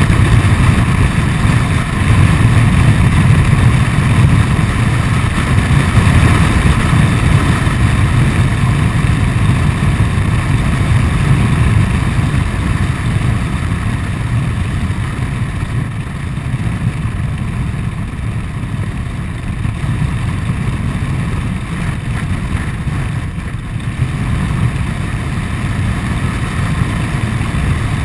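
Honda Forza 125 scooter on the move, its single-cylinder engine running under loud wind rush and buffeting on the handlebar-mounted microphone. The noise eases for a stretch in the middle, then picks up again.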